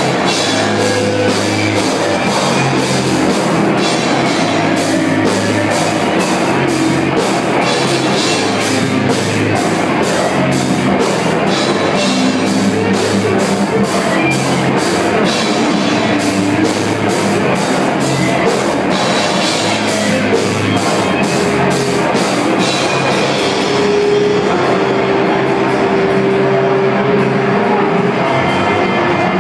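Live rock band playing loud, with distorted guitar and fast drumming with dense cymbal hits. About 23 seconds in, the cymbals stop and a guitar note is held.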